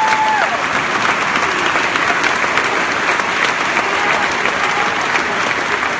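A crowd applauding steadily with many hands clapping.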